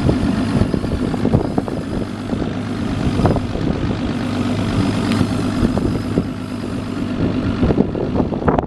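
Evinrude outboard engine idling steadily, with scattered light knocks and clicks over it.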